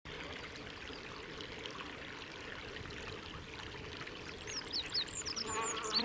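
A steady hiss, then about four and a half seconds in an olive-backed pipit starts singing: a quick run of high, thin notes, each sliding downward.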